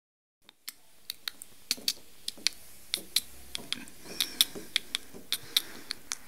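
Irregular sharp clicking taps on a wooden floor, about three a second, starting about half a second in: a toy horse figure's hard hooves being tapped along the boards as if walking.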